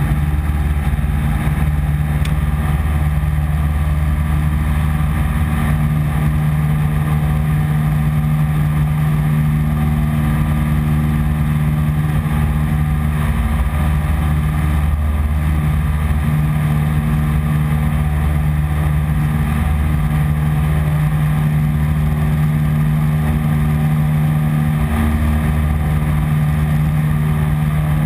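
A 1948 Piper PA-15 Vagabond's engine and propeller running loud and steady at constant pitch through the takeoff and climb-out, heard from inside the cabin.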